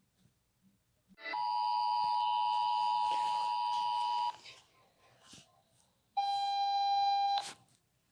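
Emergency Alert System alert tones: a steady two-pitch electronic tone about three seconds long, starting about a second in. Near the end it is followed by a shorter single-pitch beep lasting about a second.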